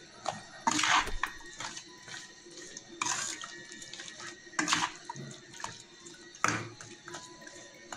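Metal spoon mixing raw chicken pieces in a wet yogurt-and-spice marinade in a stainless-steel bowl: squelching and scraping against the steel, with four louder strokes about one, three, four and a half and six and a half seconds in. Faint music plays underneath.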